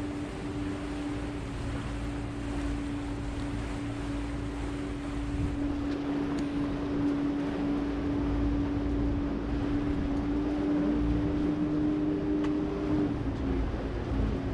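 A boat's engine running steadily with a low, even hum over the rush of water and wind; its pitch dips slightly near the end.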